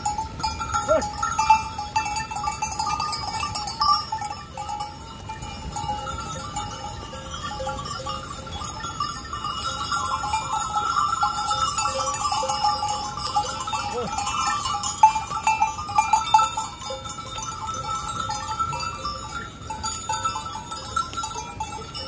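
Neck bells on a flock of goats ringing continuously as the animals move and jostle together, with a few short bleats.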